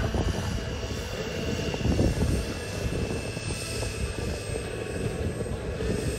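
Kingtech K100TP model turboprop engine running on the ground in a Pilatus PC-21 RC model, giving a steady high whine over a low rumble.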